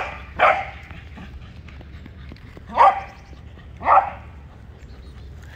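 Corgi barking: four short, sharp barks, two in quick succession at the start, then two more about a second apart a few seconds in.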